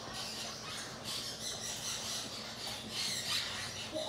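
Soft, irregular scratchy rustling as a Ducorps cockatoo picks through hair with its beak.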